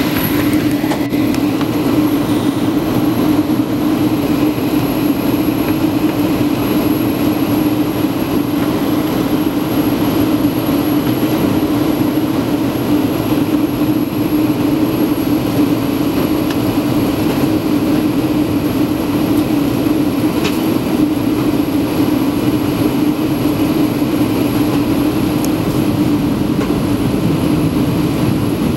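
Boeing 757 airliner cabin noise in flight: the steady drone of the jet engines and rushing airflow, a strong low hum under an even hiss, unchanging throughout.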